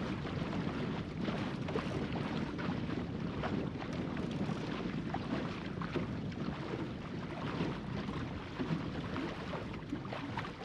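Wind buffeting the microphone over water rushing along the hull of a small plywood sailing skiff under way, with scattered small splashes and ticks.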